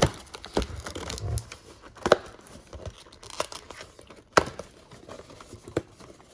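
A cardboard trading-card box and its wrapping being torn open by hand: tearing and crinkling, broken by several sharp clicks.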